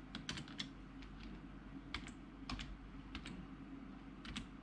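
Typing on a computer keyboard: irregular keystrokes, several quick ones together and then single presses with short pauses between them, over a faint low hum.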